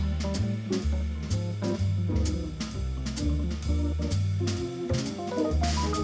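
Background pop music: an instrumental break with a steady drum-kit beat, a stepping bass line and guitar.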